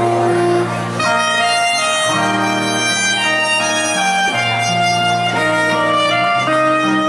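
Soprano saxophone playing a slow melody of long held notes, with acoustic guitar accompaniment.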